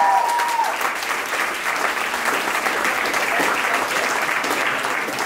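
A crowd of guests applauding, with dense clapping that eases slowly. A few held cheering voices die away within the first second.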